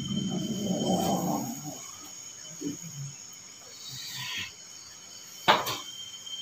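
Crickets chirping steadily in the background. A low rough sound runs through the first two seconds, there is a brief hiss about four seconds in, and a single sharp knock about five and a half seconds in is the loudest moment.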